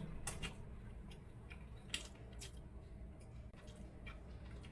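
Faint crisp clicks and crunches from biting into and chewing a deep-fried vegetable momo, a few sharp ticks over a low steady background.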